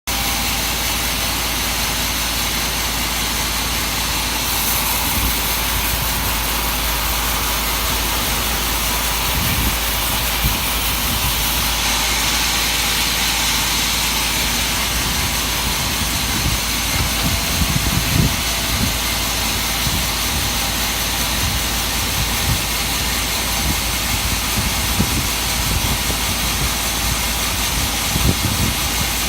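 Sawmill machinery running: a steady, loud mechanical drone with a strong hiss. The hiss turns brighter for several seconds about five seconds in, and scattered low knocks come through in the second half.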